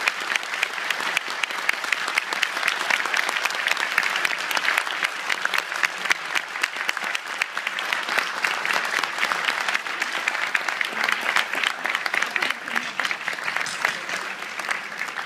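A large audience applauding: dense, steady clapping of many hands, which begins to thin out and die away near the end.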